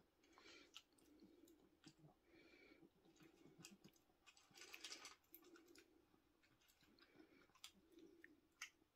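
Faint, repeated crunching and clicking of a Yorkshire terrier chewing dry kibble from its bowl, with a louder crunch about five seconds in.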